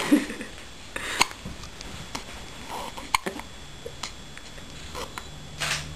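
Baby hiccuping: a few short, sharp hiccups spaced a second or two apart.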